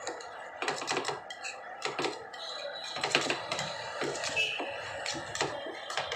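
Metal spatulas clacking on the steel cold plate of a rolled-ice-cream stall as the ice cream is chopped and mixed, in quick, irregular taps.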